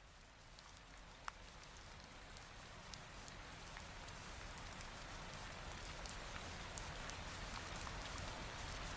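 Steady rain hiss fading in and growing gradually louder, with occasional single ticks of drops and a low rumble underneath.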